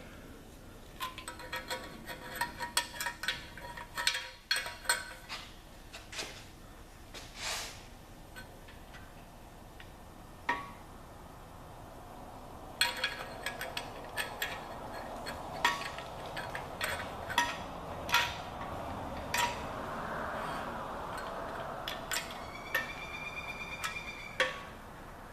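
Light metal clinks and scrapes from the cam bearing installer tool and a cam bearing being handled and fitted in the cam bore of a 396 big-block Chevy engine block, as the bearing is lined up. Scattered short clicks throughout, a stretch of rubbing in the second half, and a brief high squeak near the end.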